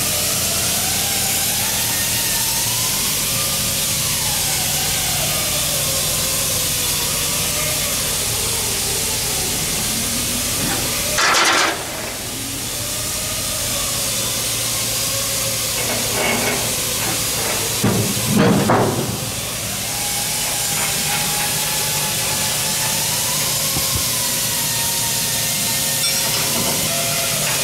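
Steady loud hiss with a low hum underneath, typical of workshop background noise. A few short louder noises break through, about eleven seconds in and again around eighteen seconds in.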